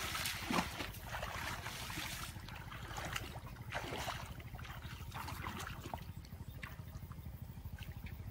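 Water splashing and sloshing in irregular surges as people wade chest-deep through a muddy pond, over a steady low rumble.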